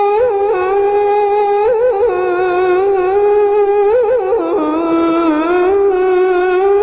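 A muezzin's solo male voice chanting the adhan, the call to prayer, holding one long note with melismatic wavering turns and sliding lower about five seconds in.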